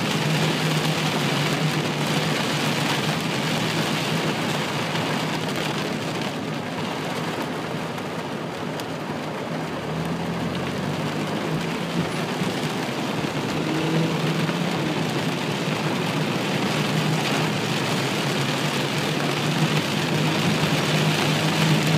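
Heavy rain on a car, heard from inside the cabin as the car drives along a wet road: a steady, pretty loud downpour, coming down in handfuls, over the low hum of the car.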